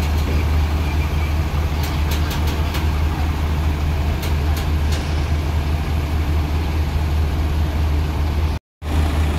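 Heavy diesel engines running at low revs, a steady deep drone, with a few light clicks about two seconds in. The sound drops out for a moment near the end.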